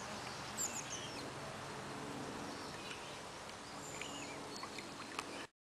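Steady outdoor background noise with a few short, high bird chirps, a cluster about half a second in and more around four seconds in. The sound cuts off suddenly near the end.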